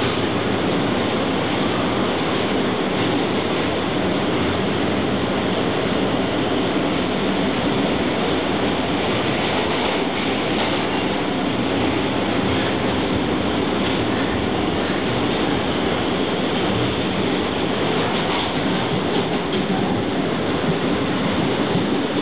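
An NYC Subway R160 car running at speed, heard from inside: a steady noise of wheels on rail and the car under way, holding an even level throughout.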